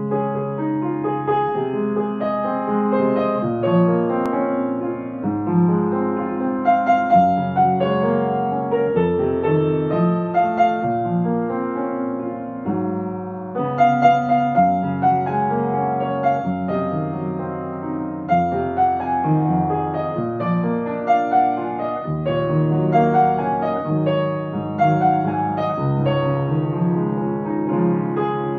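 Upright piano played with both hands: a melody over sustained chords, in an unbroken solo piano arrangement of a pop song.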